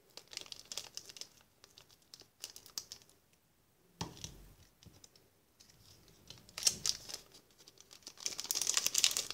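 Scissors snipping through the thin plastic packaging of a waterbrush pen, in a run of short sharp clicks. About four seconds in there is a soft thump, then the opened plastic bag crinkles in bursts as it is handled, loudest near the end.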